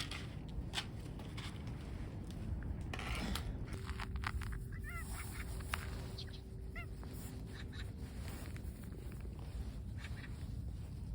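A few short bird chirps, in small groups about five and seven seconds in, over a steady low background rumble with occasional clicks.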